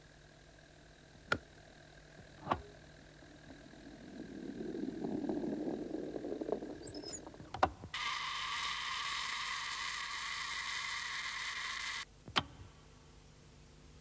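Mechanism of an antique folding camera being opened: sharp clicks about one and two and a half seconds in, a rumbling slide in the middle, another click, then a steady hissing whirr for about four seconds that cuts off sharply with a final click.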